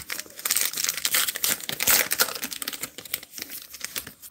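Wrapper of a Topps Heritage baseball card pack being torn open and crinkled by hand: a dense run of crackles, loudest in the middle and tailing off near the end.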